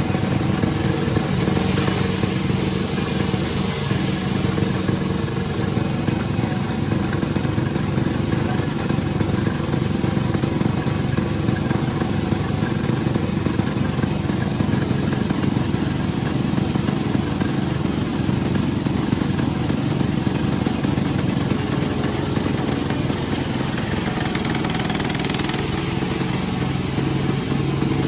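Sawmill machinery running: a steady engine drone with an even level and no change in speed.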